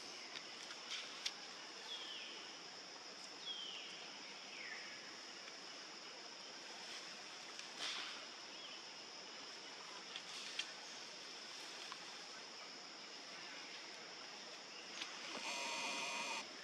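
Outdoor ambience: a steady high-pitched hiss, with three short falling calls in the first five seconds and a few faint clicks. A louder pitched sound lasts about a second near the end.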